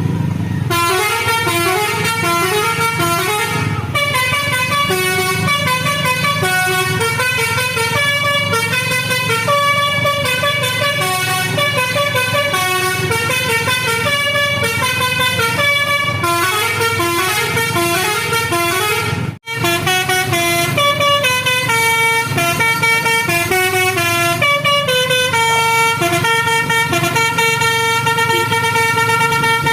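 Tour bus's Basuri telolet musical horn sounding at length, playing quick changing notes like a tune over a steady low hum, with one brief break about two-thirds of the way through.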